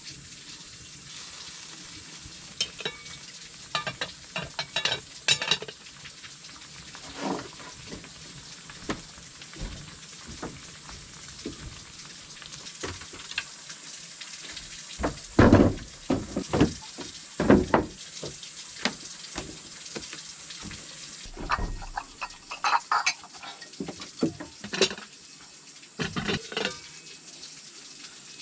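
Cooking sounds: a steady sizzling hiss with irregular knocks and clatters of a utensil against cookware, coming in loud clusters around the middle and again later on.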